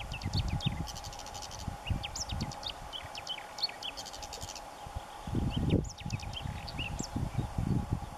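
Whinchat singing: repeated bursts of short high chirps and quick rattling trills. Low rumbling noise comes and goes underneath, loudest a little after five seconds in.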